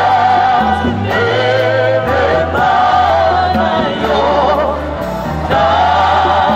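Gospel choir music: several voices singing together with vibrato over sustained bass notes that change about once a second.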